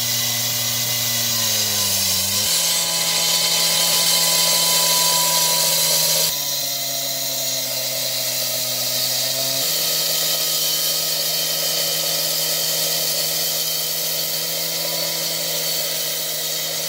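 Gas-powered two-stroke cut-off saw running at high speed, its diamond blade cutting into the ground with water spraying on it. The engine's pitch steps to a new level a few times as the blade bites.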